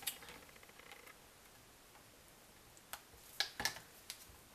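Faint ticks, then a few sharper clicks close together near the end: a silicone spatula knocking against the side of a mixing bowl while soap batter is stirred.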